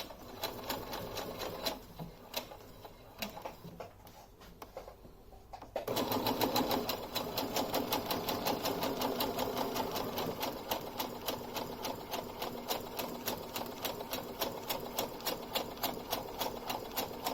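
Brother electric sewing machine stitching through fabric: a few slow, uneven needle strokes at first, then from about six seconds in it runs steadily at speed with a fast, even rhythm of needle strokes.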